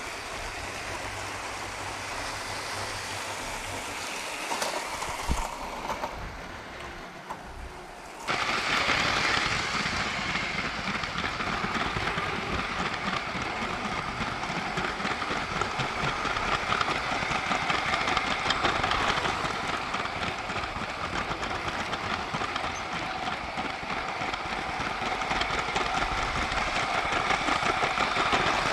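Lego 9V toy train running on its track: the electric motor whirring and the wheels clicking and clattering. About eight seconds in the sound jumps abruptly louder and closer, then runs on steadily.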